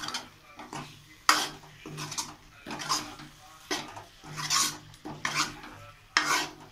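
A metal spoon scrapes and knocks against the inside of a metal kadhai as potatoes and peas are stirred into the masala. The strokes are sharp and come about once a second.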